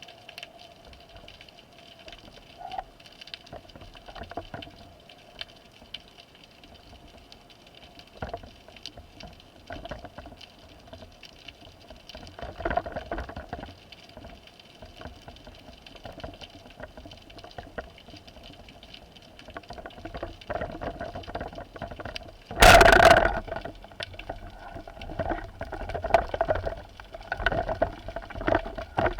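Underwater sound through a diver's camera: a steady crackle of faint clicks over water noise, with one loud, short rushing burst about 23 seconds in.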